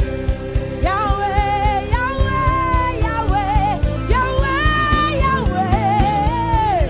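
Live gospel worship music: a voice singing a melody with vibrato over electric guitar and a drum kit keeping a steady beat.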